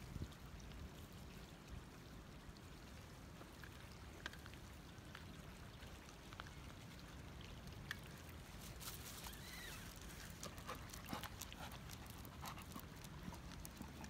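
Faint crunching and rustling of dry leaves underfoot on a low steady outdoor background, the small crackles coming more thickly in the second half.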